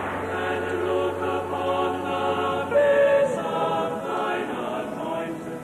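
Cathedral choir of men and boys singing in held chords, fading out near the end.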